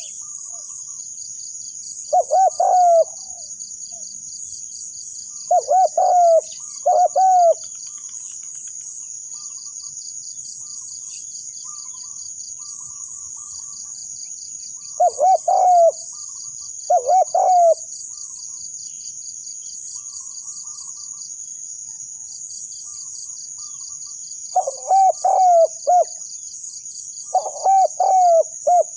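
Spotted dove cooing: short phrases of coos repeated in bouts several seconds apart, about seven phrases in all. A steady, high, rapidly pulsing insect drone runs underneath.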